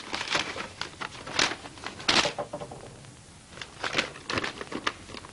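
Paper being handled, rustling and crackling in irregular bursts.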